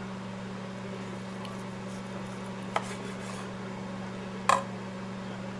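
Steel knife and fork cutting a bacon-wrapped chicken thigh on a ceramic platter, with two short clinks of metal on the plate, a little before halfway and about a second before the end. A microwave oven hums steadily underneath.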